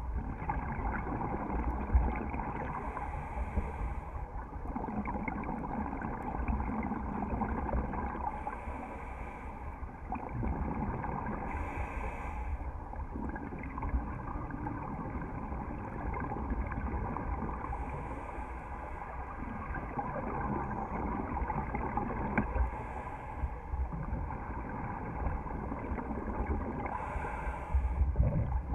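Scuba diver breathing through a regulator underwater, heard muffled through the camera housing: a short hiss on each inhale every few seconds and bubbling exhales between them.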